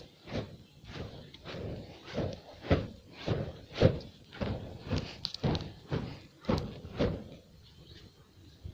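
Footsteps, about two a second, each a short dull thud, stopping about seven seconds in.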